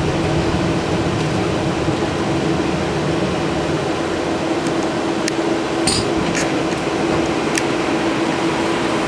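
Cabin noise inside an AKSM 84300M trolleybus on the move: a steady hum over an even rush of noise, with a few light clicks and rattles past the middle.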